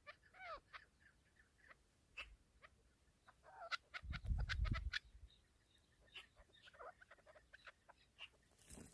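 Faint bird calls: short chirps and clucking notes scattered through, with one curved, sliding call near the start. A low rumbling thud lasting about a second comes about four seconds in.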